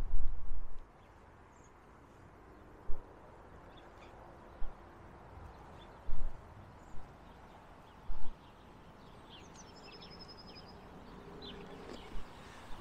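Wind buffeting the microphone in a few short, low thuds over a quiet outdoor background, with a few faint bird chirps near the end.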